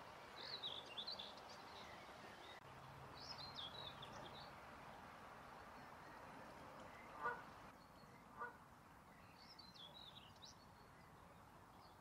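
Common whitethroat singing: three short, scratchy warbling phrases, about a second each. Two brief, lower-pitched calls from another bird come between the second and third phrases.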